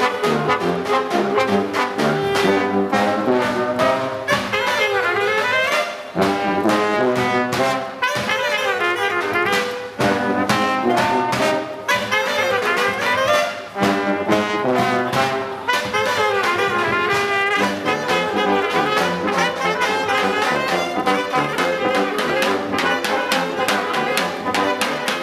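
A small brass band playing an upbeat tune, with trombone and other brass horns over a steady bass drum and cymbal beat.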